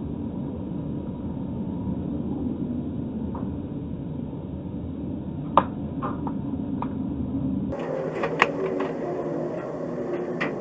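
Steady road and engine rumble inside a car cruising on a highway, picked up by a dashcam. About halfway through there is one sharp click, followed by a few lighter ticks. Near the end the sound turns brighter and more clattery.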